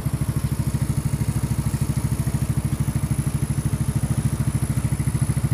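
Yamaha Mio Sporty scooter's air-cooled single-cylinder four-stroke engine idling steadily, with an even, fast regular pulse.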